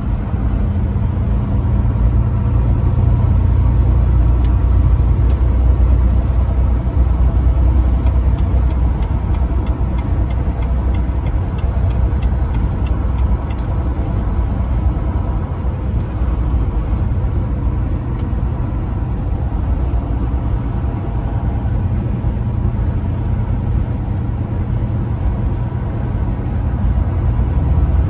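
Truck engine and road noise while driving: a steady, heavy low rumble that holds even throughout.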